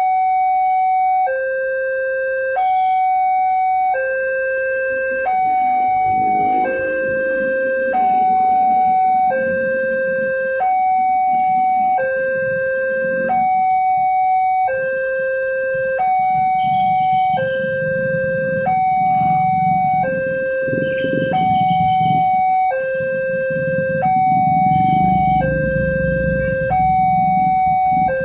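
Level-crossing warning alarm sounding a two-tone electronic signal, a low tone and a higher tone taking turns about every second and a quarter, warning that a train is approaching while the barriers are down. Motorcycle and truck engines idle underneath, growing louder in the second half.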